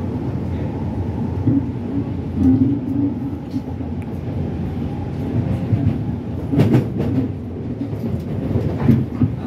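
R151 metro train heard from inside the car while running between stations: a steady low rumble of wheels on track and traction, with a cluster of sharp clicks about seven seconds in and another near the end.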